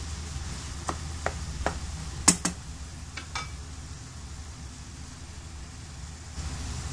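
Wooden spatula knocking and scraping against a non-stick frying pan while stirring scrambled eggs and tomatoes: half a dozen sharp taps over the first three and a half seconds, the loudest pair about two and a half seconds in. A steady low hum runs underneath.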